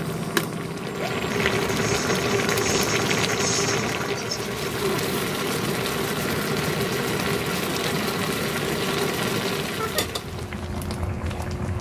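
Spicy braising sauce in a wide pan of cutlassfish and radish, bubbling and sizzling steadily, with liquid poured in from a bottle near the start.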